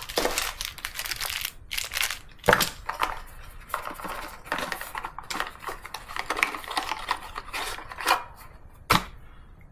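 Unboxing of a keyboard: irregular clicks, knocks and rustling as the box and packaging are handled, with louder knocks about two and a half seconds in and just before the end.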